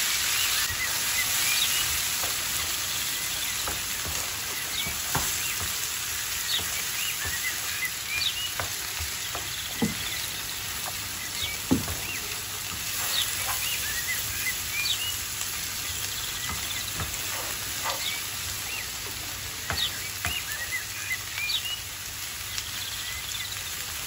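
Sliced onions sizzling and crackling in hot oil in a frying pan, with the occasional knock and scrape of a wooden spoon stirring them. The sizzle is loudest just after the onions go in and settles slowly.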